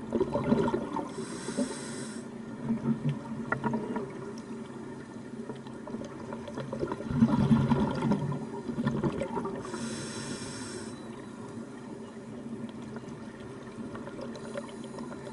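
Scuba diver breathing through a regulator underwater: a hiss of inhaling about a second in, again near ten seconds and near the end, with bubbling exhales around the start and from about seven to eight and a half seconds in.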